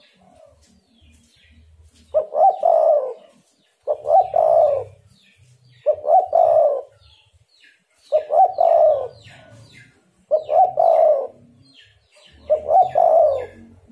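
Spotted dove cooing: six phrases about two seconds apart, each opening with a quick stutter of notes that runs into a longer coo.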